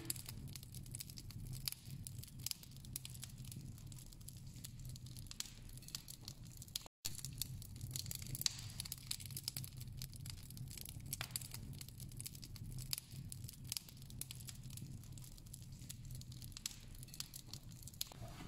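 Wood fire crackling in a fireplace: irregular snaps and pops over a low steady hum.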